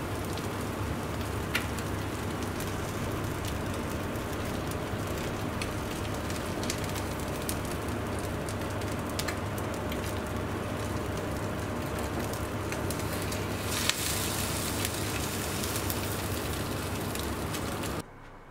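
French toast (egg-soaked baguette slices) sizzling in a frying pan: a steady hiss with small crackles and pops. About fourteen seconds in there is a sharp click, and the sizzle turns brighter and hissier. It cuts off suddenly near the end.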